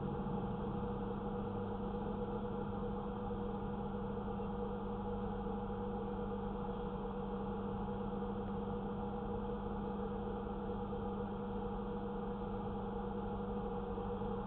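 Steady engine drone of an idling vehicle: a constant low hum with a few steady tones and no change in pitch or level.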